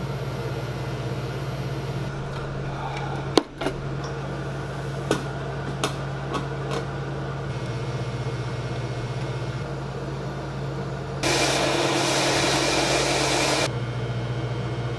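TIG welding arc from a Lincoln Square Wave TIG 175, buzzing steadily as a steel seat plate is welded to its pipe. There are a few sharp clicks around three to seven seconds in, and a louder, hissier stretch from about eleven to thirteen and a half seconds.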